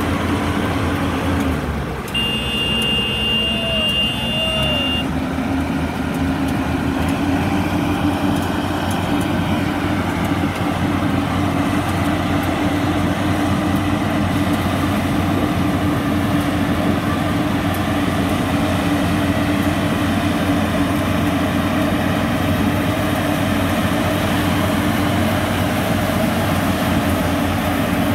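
Yanmar YH850 rice combine harvester running steadily under load as it cuts and threshes rice, its diesel engine and threshing machinery making a loud continuous drone.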